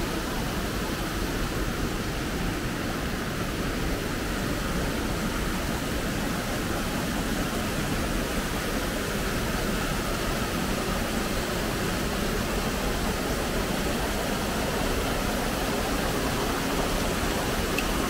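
Rushing water of a small waterfall, steady and even, pouring between large boulders into rock pools.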